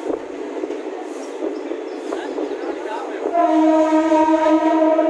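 DEMU local train rolling slowly along a station platform, heard from inside the coach, with steady wheel and coach noise; about three seconds in a train horn sounds one loud held tone lasting about two seconds.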